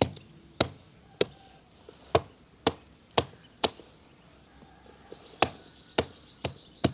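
Stone pestle knocking on sun-wilted Indian gooseberries (amla) laid on a dried palm-leaf sheath, cracking them open to free the seeds. About eleven sharp knocks, roughly two a second, with a short pause midway.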